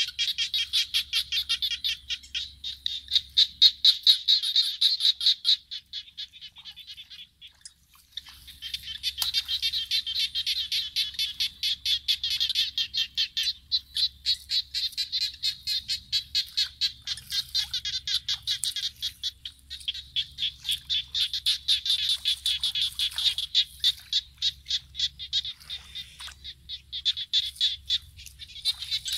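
Dense chorus of high-pitched, rapidly pulsing animal calls, of the kind frogs make in flooded fields at dusk, dropping away for a couple of seconds about six seconds in and then resuming, over a faint low rumble.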